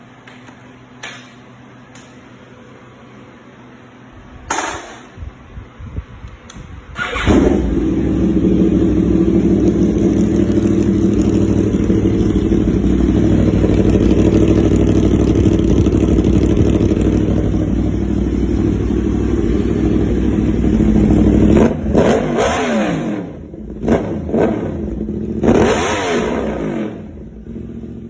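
Yamaha YZF-R1 (RN22) crossplane inline-four running through an aftermarket exhaust. After a few clicks it starts about seven seconds in and idles steadily, then is blipped in a few sharp revs near the end, each falling back to idle.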